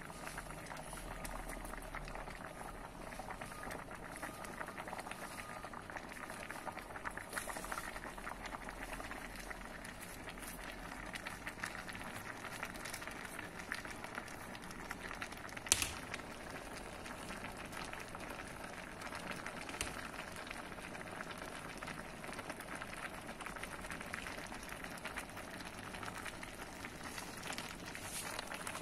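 Coconut-milk mung bean soup bubbling at a steady boil in a pot, a dense crackle of bursting bubbles. A single sharp tap sounds about halfway through.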